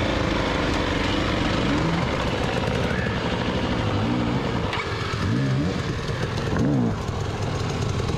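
Dirt bike engine running at idle and being blipped, the revs rising and falling sharply about four times, the last blip near the end the loudest.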